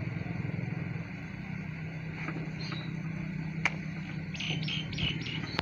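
A steady low engine-like hum. About two-thirds of the way through there is one sharp click, followed by a quick run of four short high chirps, likely birds.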